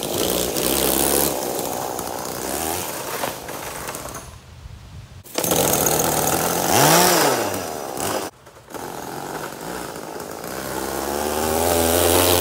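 Homelite 42cc two-stroke chainsaw engine powering a homemade scooter, revving as it pulls the rider along, with two short breaks. Around the middle its pitch rises and falls, and near the end it climbs again as the engine revs up.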